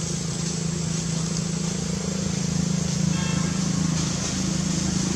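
A motor running steadily with a low, even hum. About three seconds in there is one short, high-pitched call.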